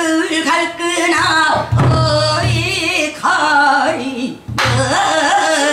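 A female pansori singer singing in the Boseong style, her voice bending and wavering in pitch through long held and sliding notes. A low accompaniment sounds beneath the voice in stretches.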